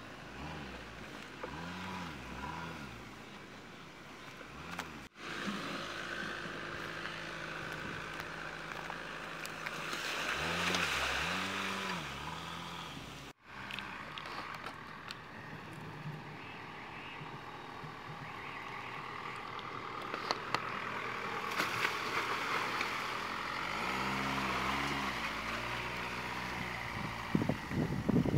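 Land Rover Freelander 2 SUV engine revving up and down in several short rises as the car drives over dirt off-road tracks, with tyre noise on the dirt. There are a few loud bumps near the end.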